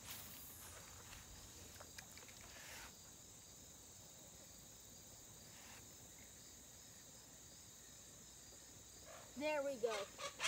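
Steady high-pitched chirring of insects, with a brief swish of a rod and line being cast right at the start and a person's voice near the end.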